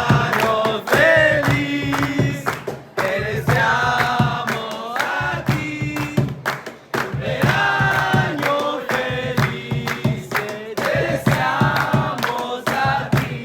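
Music with a sung vocal melody over a steady drum beat and bass.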